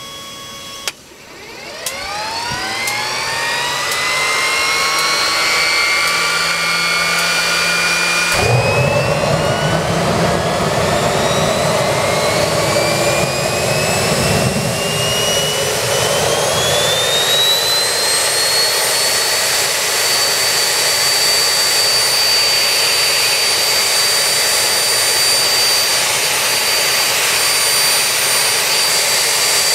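Home-made jet engine starting up. The turbine spools up with a rising whine, then about eight seconds in there is a sudden rush of combustion noise as it lights. Its whine keeps climbing and settles at about twenty seconds into a steady high-pitched running note.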